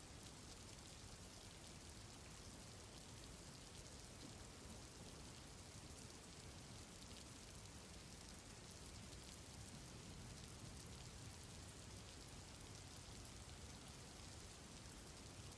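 Faint, steady rain, an even hiss with light patter throughout.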